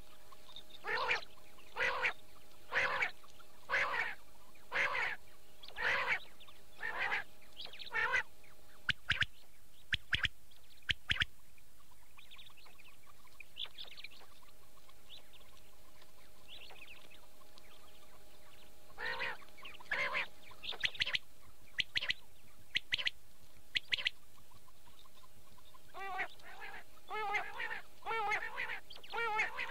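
Recorded quail calls of the kind played to lure quail: short calls repeated about once a second, a few sharp clicks in the middle, then more calls and a faster, warbling run of calls near the end, over a faint steady hum.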